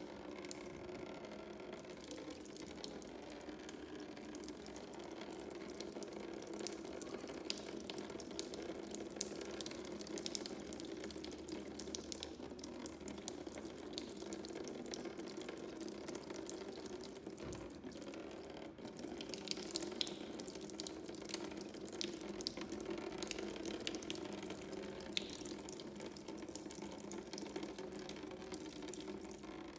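Thin stream of fluid running from the sump drain hole of a Ford Fiesta 1.3 engine and splashing into a drain pan: a steady trickle with small scattered splashes and drips.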